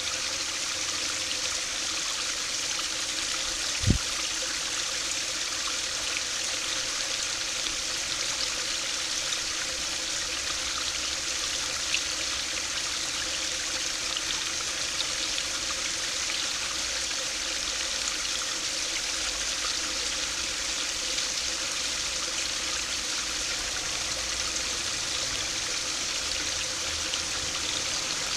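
Small stream of water spilling over a low stone step into a pool: a steady splashing trickle. A single low thump about four seconds in.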